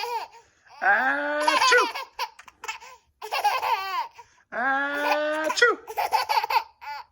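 A baby laughing in repeated bursts, about four times, each a second or so long.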